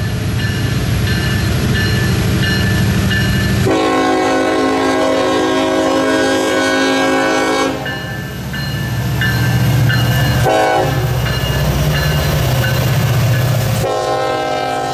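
Norfolk Southern SD70IAC diesel locomotive passing close by, its EMD engine running loud with a deep rumble. The air horn sounds a long blast of about four seconds, a short toot around ten seconds in, and then another long blast starting near the end, the closing long–short–long of a grade-crossing signal.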